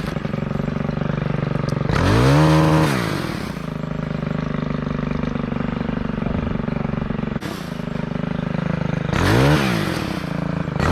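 Chainsaw idling, throttled up to full speed and back down twice: once about two seconds in and again near the end.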